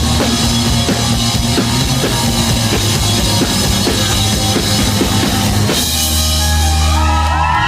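Live rock band playing with a driving drum beat. Nearly six seconds in, the drums stop and the band holds one final chord while the audience begins whooping.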